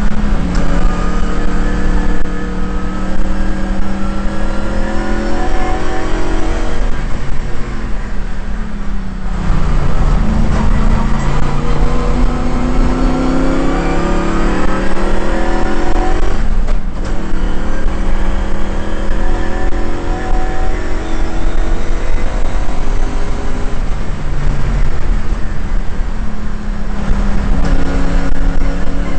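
Shelby GT350's V8 engine at racing speed, heard from inside the car. The engine note climbs under acceleration and drops away, breaking off briefly about 9 and 17 seconds in at gear changes. A steady low rumble of wind and road noise runs beneath it.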